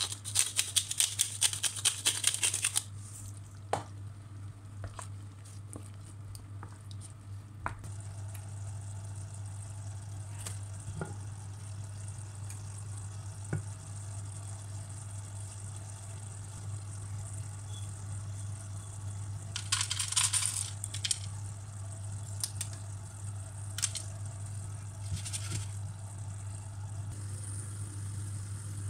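A hand pepper mill grinding in a quick run of rattling clicks for about three seconds, then a steady low hum with scattered light clicks. About twenty seconds in there is a brief clatter of pumpkin seeds poured into a frying pan, with a shorter one a few seconds later.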